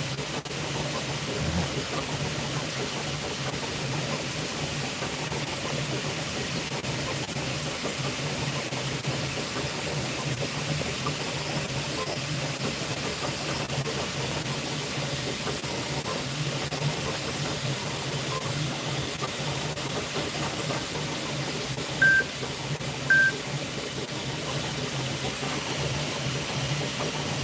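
Bambu Lab P2S 3D printer running: a steady hum of fans and motors with hiss. Near the end there are two short high beeps about a second apart.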